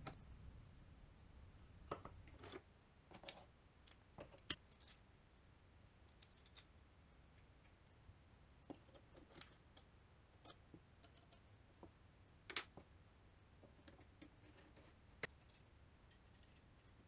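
Sparse small clicks and light metallic knocks of aluminium extrusion jig rails being handled and slid together, with a sharper click about three seconds in and another louder knock near the twelve-and-a-half-second mark; otherwise the room is nearly silent.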